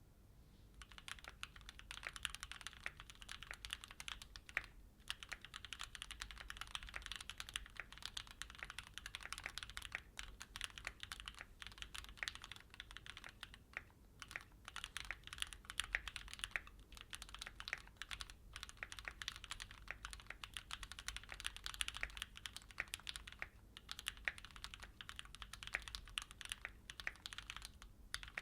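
Fast, continuous typing on a Keychron Q6 full-size mechanical keyboard with stock Gateron G Pro Red linear switches. The clicks start about a second in, and the typing pauses briefly a few times.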